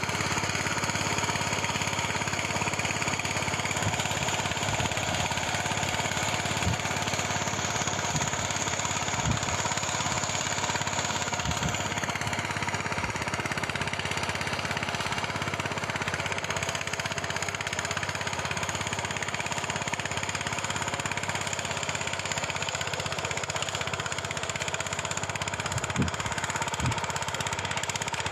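Engine of a ploughing machine running steadily, with a few short knocks here and there.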